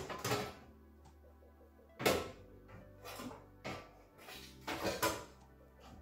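Background music with steady held notes, punctuated by several sharp knocks, the loudest about two seconds in.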